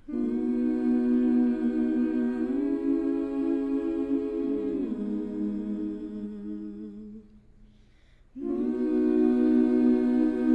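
Background music of humming voices holding long, low notes that shift pitch a couple of times, fading out about seven seconds in and coming back a second later.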